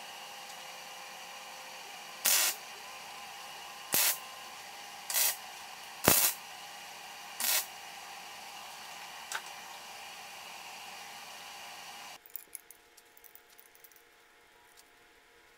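Five short MIG welding tacks, each a brief crackling burst of under half a second, over a steady background hum. The hum stops abruptly about twelve seconds in, followed by a few light clicks of metal parts being handled.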